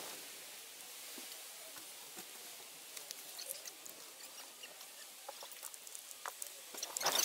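Twigs burning in a small stainless steel wood-burning camp stove under a kettle: a steady hiss with scattered crackles and pops that come more often after a few seconds. Near the end there is a louder burst of crackling and rustling.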